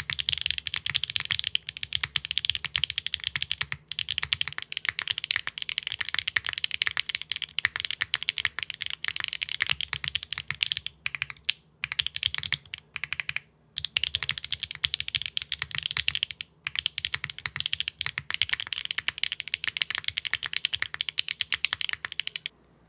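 Fast, steady typing on a 65% custom mechanical keyboard with Akko Cilantro switches on an aluminium plate and no foam: dense key clacks, broken by a few brief pauses.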